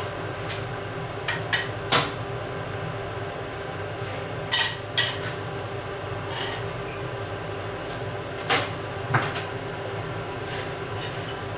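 A metal saucepan and a spoon knocking and clinking as sweetcorn is spooned out of the pan onto a plate. There are several sharp separate knocks a second or more apart, over a steady low hum.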